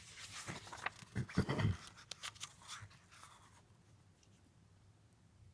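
Paper rustling with light clicks and crackles, like a picture-book page being handled and turned. It dies away after about three and a half seconds.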